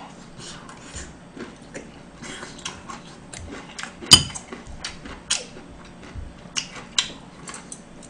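Close-miked eating sounds: chewing and wet mouth clicks, with metal chopsticks clicking against the side dishes. The sharpest clink comes about four seconds in.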